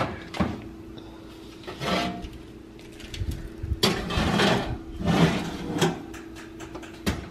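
A metal oven door opening, and a foil-lined baking sheet sliding onto the oven rack. There is a series of clunks and scrapes of metal on metal, busiest in the second half, over a steady low hum.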